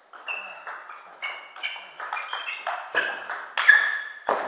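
Table tennis rally: the ball clicking off the bats and bouncing on the table in a quick alternating series of sharp pings, about three a second, getting louder near the end.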